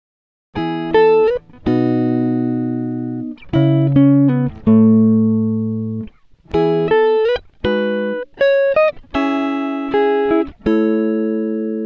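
Background music: a guitar-like plucked melody of separate notes that strike and ring out, starting about half a second in.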